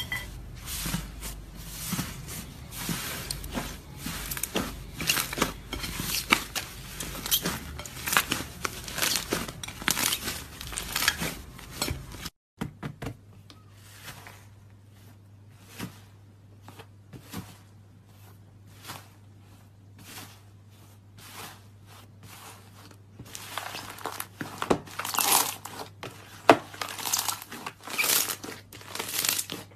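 Thick slime being worked: dense crackling and popping as a knife cuts through it, then, after a break, sparse soft clicks and pops as slime is peeled from a mould. Near the end it becomes loud, crinkly crackling as hands stretch and fold it. A steady low hum runs under the second half.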